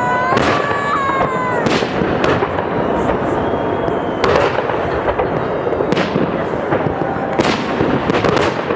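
Festive fireworks salute: aerial firework shells bursting with sharp bangs, about seven in all, spaced irregularly a second or two apart, over a steady background of voices.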